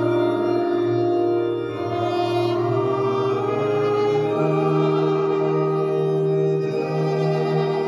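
Live church band playing a hymn in long, held chords, led by an electronic keyboard on an organ sound with saxophones and violins, over a bass line that shifts to a new note about four seconds in.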